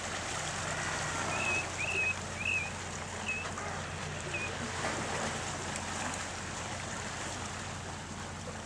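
Steady wash of wind and surf on a rocky shore, with a faint low hum underneath. A bird gives five short, high chirps in the first half.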